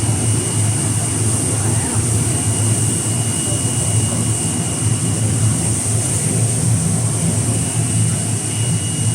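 Industrial air-bubble washing machine running: a steady low hum under a constant hiss, with a thin high whine held throughout.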